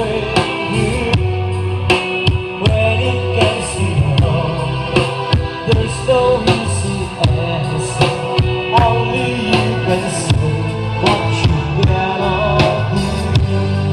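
A song with singing, drums and a strong bass line, played through a subwoofer and bullet-tweeter speaker setup under test.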